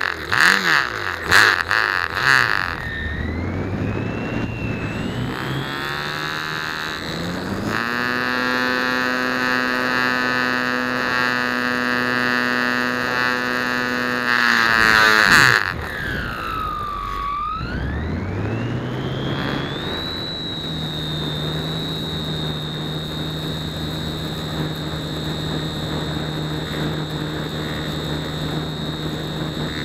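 Electric motor and propeller of a Flite Test Nutball RC foam plane in flight, heard from a camera on board. The motor whine rises and falls with the throttle: a few loud bursts at the start, then a steady high run, a sharp throttle-down about halfway that climbs back up, and a steady run to the end.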